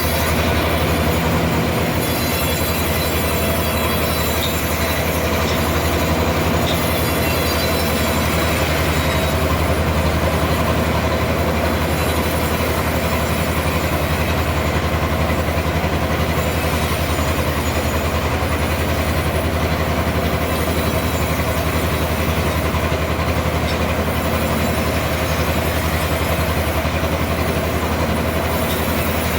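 Sawmill machinery running steadily: a loud, even mechanical hum with a constant whine above it.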